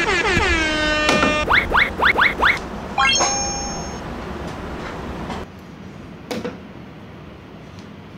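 Cartoon-style sound effects: a whistle-like tone sliding down in pitch, then four quick rising swoops, then a short bright ding.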